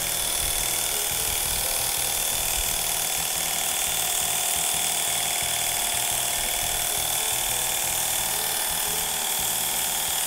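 Artisan Tool cordless battery pressure washer running steadily, its motor and pump giving a steady high whine, with the water jet from a spinning cyclone (rotating) nozzle hissing onto concrete.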